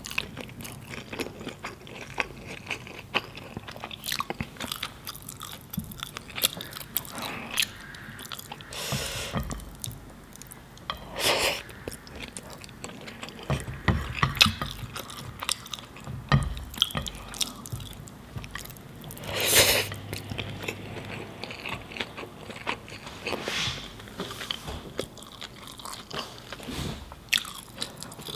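Close-miked ASMR eating sounds: a person chewing mouthfuls of biryani rice eaten by hand, with many small wet mouth clicks and smacks and a few louder bites.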